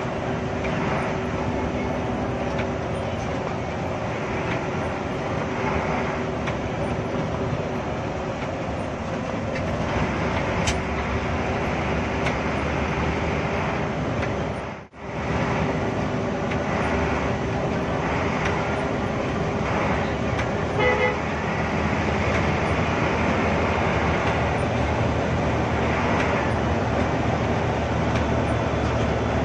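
Cabin sound of a Hino AK8 bus's six-cylinder turbodiesel running steadily under way, a constant engine hum with road noise. The sound drops out briefly about halfway through, and a short horn toot sounds about two-thirds of the way in.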